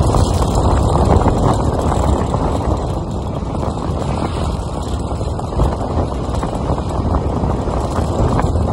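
Wind rushing over the microphone of a moving motorbike, with the bike's running and road noise underneath.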